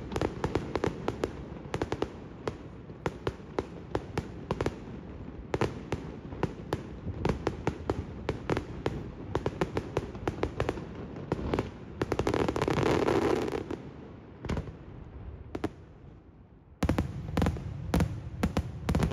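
Daytime aerial fireworks display: a rapid, irregular barrage of shell bursts and salute bangs. About twelve seconds in there is a louder dense rush for about a second and a half, followed by a short lull. The bangs pick up again thick and fast near the end.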